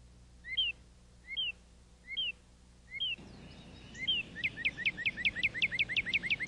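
A songbird singing: five spaced whistled notes, each a short rising note then a falling slur, then, about two-thirds of the way through, a fast run of falling notes at about six a second. A low steady hum runs underneath.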